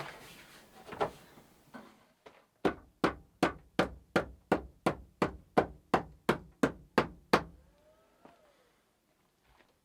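A quick, even run of about fourteen sharp knocks, nearly three a second, starting a couple of seconds in and stopping about two seconds before the end.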